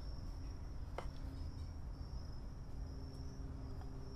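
Steady low hum and a continuous high-pitched tone in the background, with one light click about a second in as the removed fuel filter and its metal bracket are handled.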